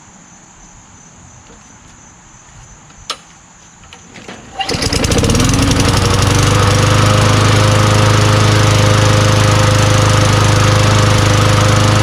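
A Craftsman push mower's Tecumseh engine starts about four and a half seconds in, right after its carburetor has been cleaned and with the air filter off, then runs steadily at speed. A single sharp click comes shortly before it catches.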